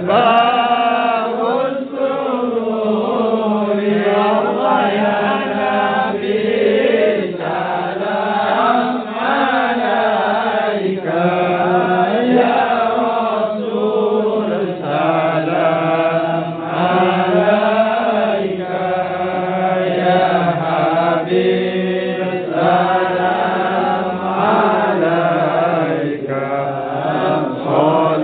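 A group of men chanting shalawat, Islamic devotional praise of the Prophet, together in unison. The chant runs in long sung phrases with brief pauses between them.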